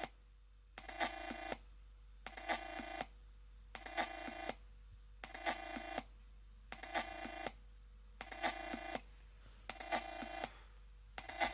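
Chromebook Pixel laptop running Ubuntu making a weird, buzzy ringing noise in regular pulses: about eight bursts, each lasting under a second and starting with a click, repeating every second and a half.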